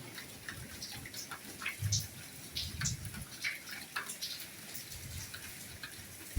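Soft rain falling, with individual drops landing irregularly over a steady hiss, and a few dull low thuds of heavier drops about two and three seconds in.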